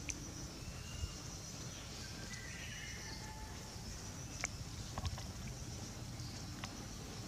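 Faint, short high squeaks from a young macaque, a couple of seconds in, over steady outdoor background noise, with a few light clicks later on.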